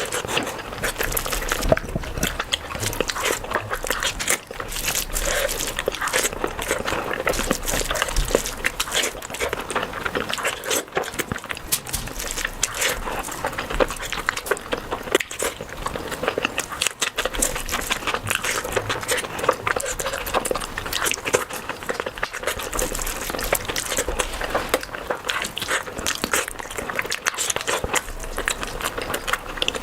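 Close-miked eating: a person chewing and smacking mouthfuls of rice and curry, a dense, irregular run of clicks and crunches.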